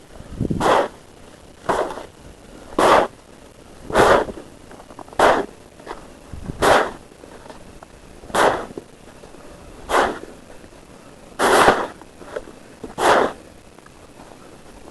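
Snow being cleared by hand: about ten short, sharp strokes in a steady rhythm, one every second and a half or so.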